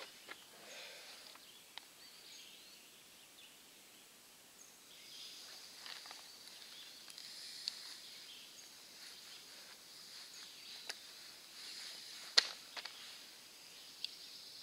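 Quiet woodland ambience with a faint, high-pitched background of birds and insects, broken by a few soft clicks and taps of small gear being handled; the sharpest click comes about twelve seconds in.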